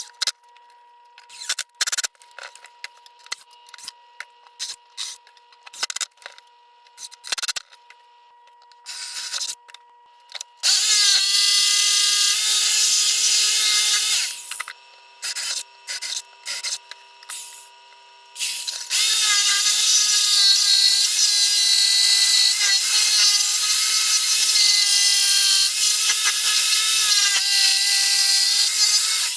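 Power drill working wood: scattered clicks and short triggers at first, then the motor runs at a steady pitch for a few seconds, a few short bursts, and a long run of about ten seconds.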